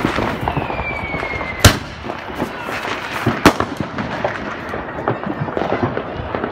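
Fireworks going off: continuous firecracker crackle, with two loud bangs a little under two seconds apart. A short whistle falling in pitch ends in the first bang.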